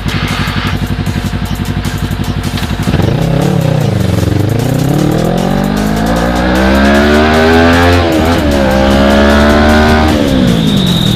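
Motorcycle engine idling, then revved up, its pitch climbing for several seconds with a brief dip partway through, before it drops back to idle near the end.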